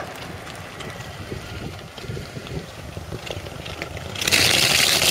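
Car exhaust blowing through a bicycle inner tube slipped over the tailpipe, the rubber flapping in an uneven low sputter like a fart. About four seconds in it jumps to a much louder rushing blast.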